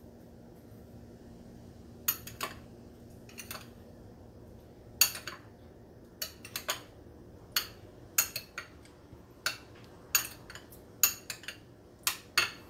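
Metal spoon clinking against a glass bowl while stirring colour into papaya cubes: about a dozen sharp, irregular clinks starting about two seconds in.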